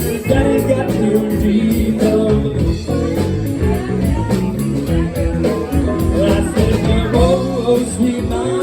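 Live blues-rock band playing, with a bending lead line over a steady beat.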